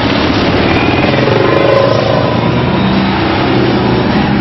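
Off-road motorcycle engines running, their pitch rising and falling with the throttle.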